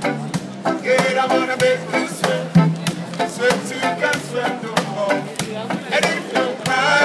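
Music: a voice singing over drums and percussion, with a steady bass line.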